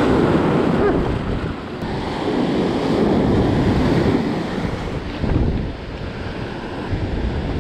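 Ocean surf breaking and washing up the beach, rising and falling with each wash, with wind buffeting the microphone.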